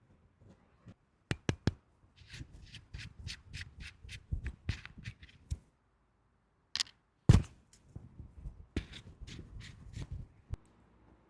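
Unboxing a red dot sight: hands handling the sight and its packaging. Three sharp clicks about a second in, then a quick run of scraping, rustling strokes, a loud snap near the middle, and more rustling after it.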